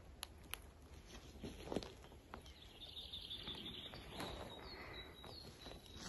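Footsteps crunching on the dry forest floor of a pine wood, with a bird singing high, thin chirping notes from about halfway through.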